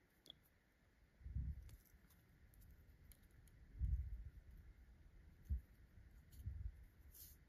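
Faint handling noises of hands working yarn and a crochet hook: a few soft, low bumps and light clicks.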